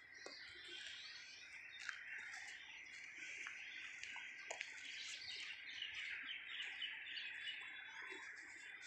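Birds chirping and calling against a steady high background hiss, with a few faint clicks.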